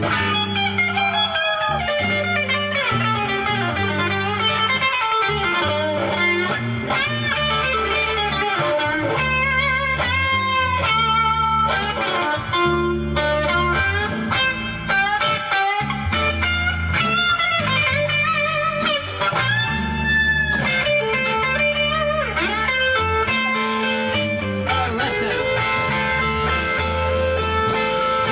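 Live band music with no singing: an electric guitar plays a lead line with bent notes over a bass line.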